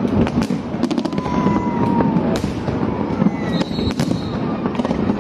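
Aerial fireworks display: a rapid series of sharp bangs and crackles, some in quick clusters, over a continuous rumble of distant bursts.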